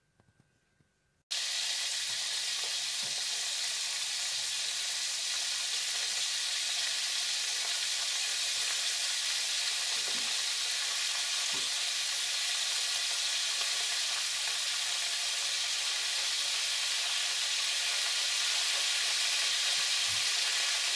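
Hot oil sizzling steadily in a frying pan as floured sprats fry. It starts abruptly about a second in. A few faint knocks sound under the sizzle.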